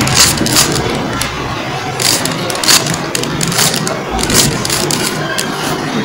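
A stickerless plastic 3x3 Rubik's cube being turned by hand, layer after layer, each turn a quick plastic click or clack, at irregular intervals of about half a second to a second as a move sequence is worked through.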